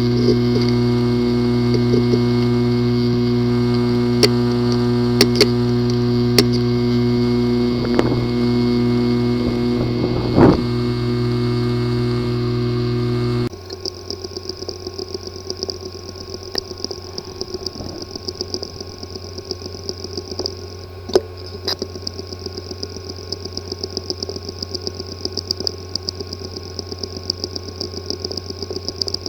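Hard drive with a physically damaged disk assembly running abnormally: a steady buzzing hum broken by a few sharp clicks. About 13 seconds in it cuts abruptly to a quieter, rapid ticking over a thin high whine.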